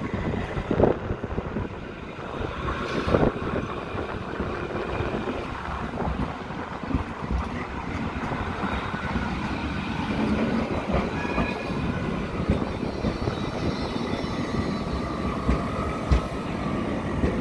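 Low-floor city trams passing close on street track, their wheels rumbling and clattering over rail joints and points, with two sharp knocks in the first few seconds.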